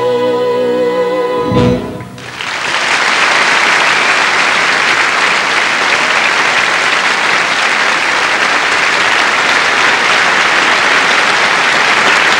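A woman's voice holds the song's final note with vibrato over the accompaniment's closing chord, cut off together about two seconds in. A large audience then breaks into steady, loud applause.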